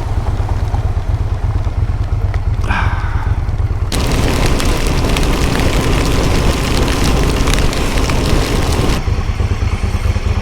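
Moto Guzzi 1200 Sport underway in heavy rain, a steady low rumble of wind buffeting and engine on the rider's microphone. A loud hissing rush comes in about four seconds in and drops away about nine seconds in.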